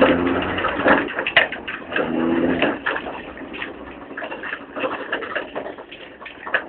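A vehicle engine's low hum, heard near the start and again briefly about two seconds in, under a constant clatter of knocks and rattles from the tow running over a bumpy stubble field.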